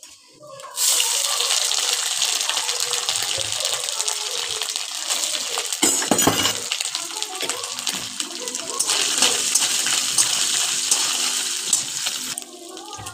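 Diced potatoes dropped into hot oil with whole spices in a steel wok, sizzling loudly from about a second in. A louder scraping burst comes about six seconds in as the pieces are stirred, and the sizzle drops away near the end.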